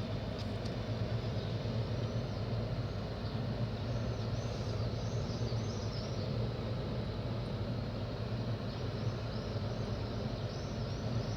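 Steady low hum of background noise, with two runs of quick, high chirps partway through and near the end.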